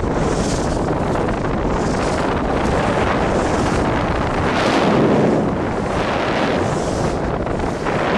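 Wind buffeting the camera microphone during a fast ski run, with the hiss of skis carving the snow swelling on each turn, about every second and a half.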